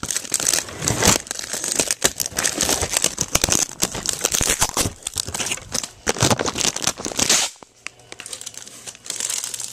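Plastic toy packaging crinkling and tearing as it is handled and pulled open close to the microphone, in dense irregular crackles; it quietens about seven and a half seconds in, with lighter rustling near the end.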